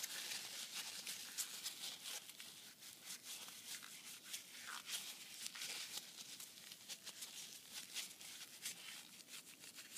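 A paper towel rubbing and twisting inside the bore of a CyberHammer tuning-hammer head, wiping off old residue: a faint, dry rustling scrape made of many short scratchy strokes.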